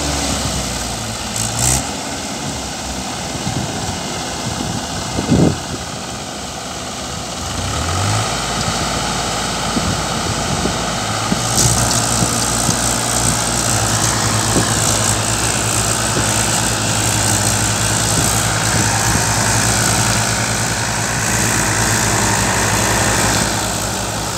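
Two tractors' diesel engines running steadily under load as they drive rotavators through the soil, with a constant hum and a wash of noise over it. The sound gets louder about a third of the way in, as a tractor works closer.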